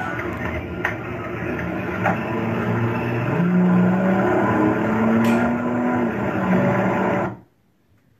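Car engine revving, recorded from the driver's seat and played back through home theater speakers. The engine note climbs in pitch a few seconds in, and the sound cuts off abruptly near the end.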